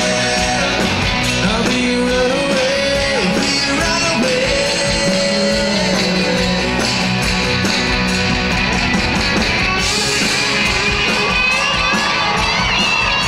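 A country rock band playing live on electric and acoustic guitars and drums, with a singer's voice over the band.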